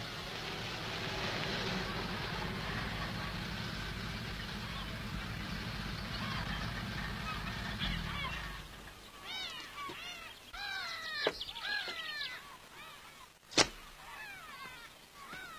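A car engine runs steadily and cuts off about eight and a half seconds in. Then geese honk in short, falling calls, and a single sharp knock sounds near the end.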